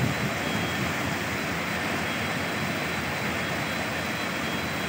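Steady rushing noise of a floodwater torrent sweeping past, mixed with heavy rain.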